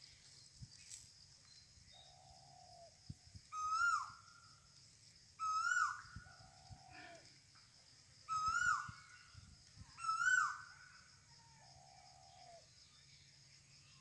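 Bird calls outdoors: four loud, clear pitched calls of about half a second each, roughly every two seconds, with softer, lower-pitched calls between them. A faint steady high-pitched drone runs beneath.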